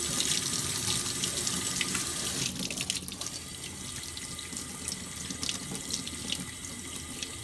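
Kitchen tap running into a stainless steel sink while a crab is rinsed under the stream. The water runs steadily, a little louder in the first couple of seconds, with a few light clicks from the shell being handled.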